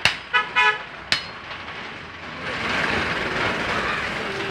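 Two sharp chops of a meat cleaver into beef on a wooden block, one at the start and one about a second later, with two short toots of a vehicle horn between them. Then a steady din of street and market noise.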